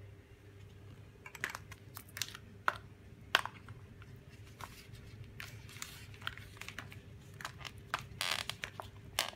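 Hands handling a foam RC plane and pressing a small plastic-wrapped LiPo battery onto its fuselage: scattered clicks, crinkles and rustles, with one sharp click a little past three seconds and a denser crackle near the end.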